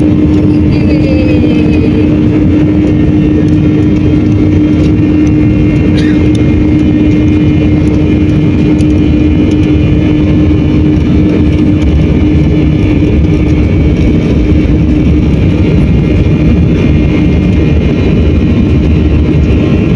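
Jet airliner's engines heard from inside the cabin during the takeoff roll: a loud, steady rush with a steady hum under it.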